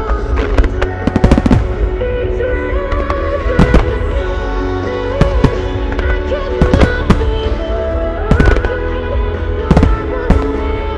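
Aerial firework shells bursting in sharp reports, in clusters every second or two, over music playing through loudspeakers.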